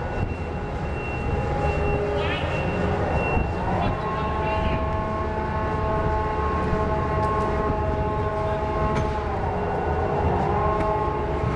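Ship's deck crane winch running under a steady low rumble, with a whine that rises in pitch about four seconds in, falls back about nine seconds in and rises again near the end as the winch changes speed while lowering the log load and lifting the hook.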